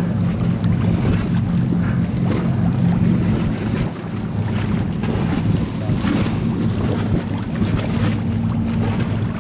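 Steady low drone of two high-speed passenger boats' engines running flat out as they race in, mixed with wind buffeting the microphone.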